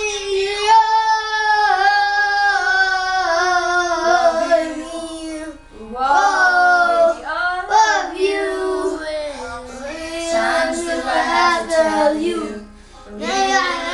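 Children singing a song, holding long notes, with brief breaks for breath about five seconds in and near the end.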